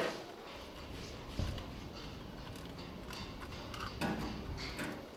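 Scattered knocks and clicks of objects being handled and set down, over a low rumble.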